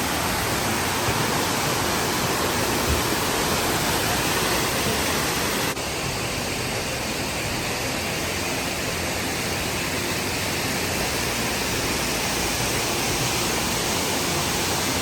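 Steady rushing of fast-flowing water, an even hiss-and-roar without breaks, dropping slightly in level about six seconds in.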